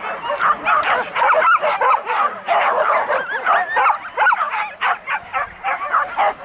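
A pack of boar-hunting dogs yelping together, many high voices overlapping without a break.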